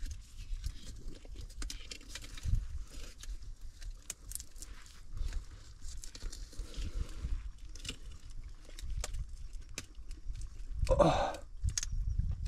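Close handling noise: scattered clicks, scrapes and knocks over a low rumble as a crab hook is worked into a mud crab's hole in the muddy mangrove bank from a kayak. Near the end, a short murmur from a man's voice.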